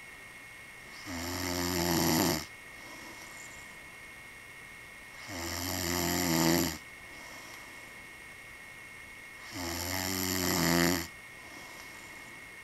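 A man snoring: three long snores about four seconds apart, each swelling louder and then cutting off sharply.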